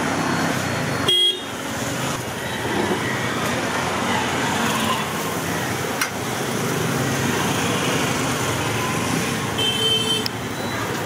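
Busy street traffic noise with car horns: a brief honk about a second in and more honking near the end.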